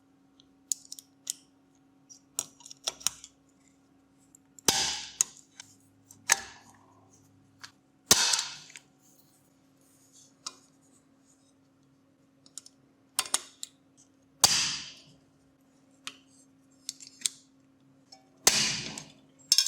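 A series of sharp knocks and clicks, about five loud ones with short hissing tails and many light clicks between them, over a faint steady hum.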